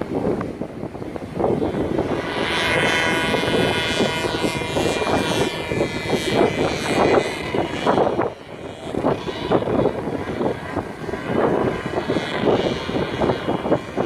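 Powered paraglider's paramotor engine and propeller droning steadily as it flies past. The drone comes in about two seconds in and swells and fades, under heavy wind buffeting on the microphone, which is the loudest sound.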